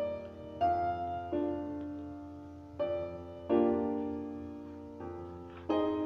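Classical solo piano music: chords struck every second or two and left to ring and fade.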